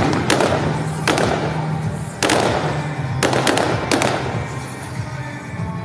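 Fireworks shells bursting in the sky, about six sharp bangs with echoing tails, two of them close together near the middle. Music plays underneath.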